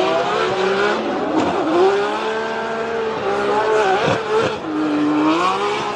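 Race-car engine sound effect: a continuous revving whine that dips and rises in pitch.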